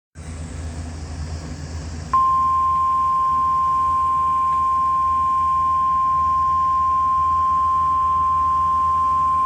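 NOAA Weather Radio warning alarm tone: a single steady 1050 Hz tone that starts about two seconds in and holds, over the receiver's hiss and hum. It is the signal that a warning message follows.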